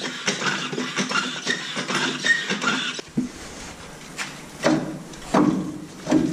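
Metal-on-metal rattling and clicking as a coil spring is worked into a truck's front lower control arm. After about three seconds this gives way to a series of sharp metal clunks, a little under a second apart.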